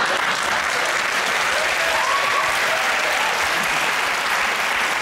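Studio audience applauding, a dense, steady clapping that holds at one level throughout.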